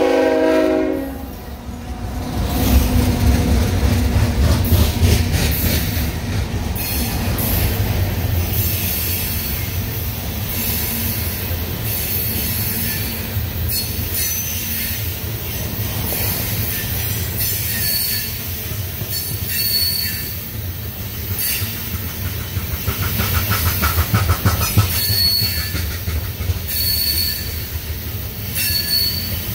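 CSX loaded coal train rolling past: the low rumble of the cars with wheels clicking over rail joints, and short high wheel squeals that come more often in the second half. A locomotive horn cuts off about a second in.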